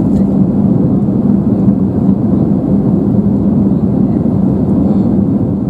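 Steady low roar of an Airbus A320-200 in flight, heard inside the cabin from a seat over the wing: engine and airflow noise with a steady hum.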